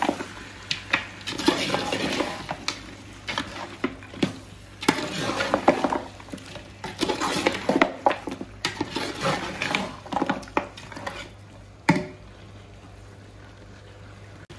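Metal spoon stirring and scraping chunks of meat and yogurt in a large metal cooking pot, with repeated clinks of the spoon against the pot. The stirring stops about twelve seconds in with one last sharp clink.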